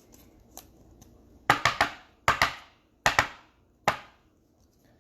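Trading cards handled on a table: a few sharp taps and snaps, in quick pairs and triplets about a second and a half, two and a half and three seconds in, with a single one near four seconds.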